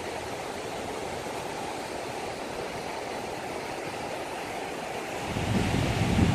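Steady rush of moving water. About five seconds in, a low rumble of wind buffeting the microphone swells up.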